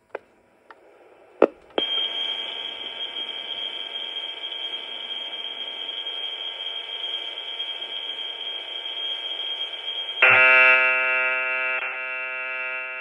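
Commodore VIC-20 cassette data played back through a Texas Instruments program recorder's built-in speaker. A couple of clicks come as playback starts, then a steady high leader tone for about eight seconds. A few seconds from the end it switches abruptly to a louder, different tone.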